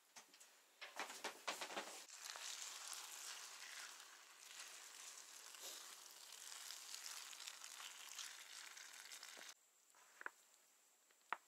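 Food sizzling in a frying pan over a small wood-fired stove, a steady hiss that cuts off suddenly about two seconds before the end. A few sharp clicks come before it, and a few faint isolated clicks after.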